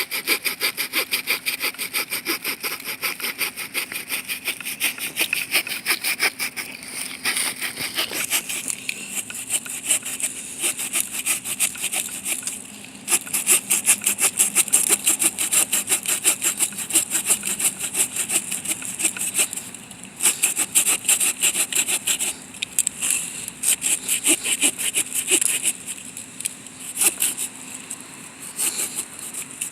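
The wood-saw blade of a Victorinox RangerWood 55 pocket knife sawing through a log by hand, quick, even back-and-forth strokes that break off briefly a few times.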